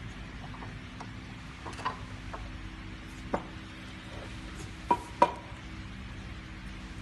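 A few sharp metallic clinks and taps of steel tooling on the die table of a TDP-5 tablet press while its middle die is fitted, some with a short ring; the loudest two come close together about five seconds in. A low steady hum runs underneath.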